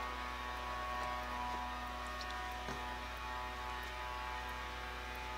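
Steady electrical mains hum, made of several evenly spaced steady tones, with a faint tap about two and a half seconds in.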